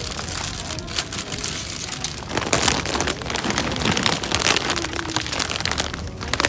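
Plastic packaging crinkling and rustling as it is handled, including a large plastic snack bag, making a continuous crackle.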